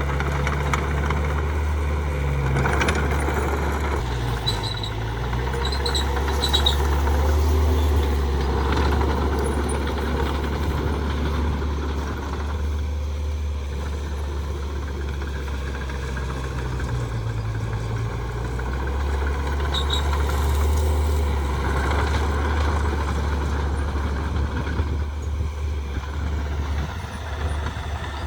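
Heavy diesel earthmoving machinery running on a construction site, its engine drone rising and falling with load, with a few brief high squeals about five to seven seconds in and again near twenty seconds.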